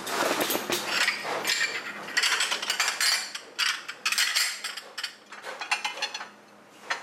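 Kitchen work clattering, heard as several bursts of rapid clicks and scrapes that thin out near the end.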